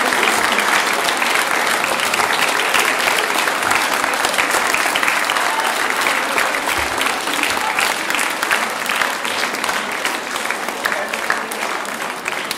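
A large audience of schoolchildren applauding: dense, steady clapping that eases a little toward the end.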